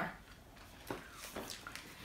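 Faint chewing of a chocolate wafer bar with caramel and nuts, with a few soft crunches from about a second in.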